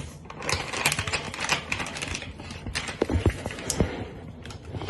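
Irregular clicks, taps and rustles of a packet and bowl being handled as dry cookie mix is emptied into the bowl.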